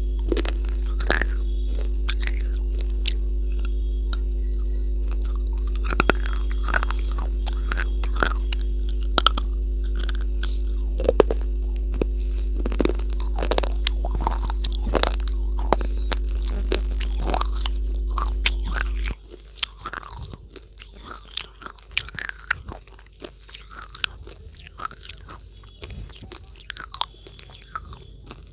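Close-miked biting and chewing of a hard, white, chalk-like block: many short sharp crunches and snaps. A steady low electrical hum runs under it and cuts off suddenly about two-thirds of the way through.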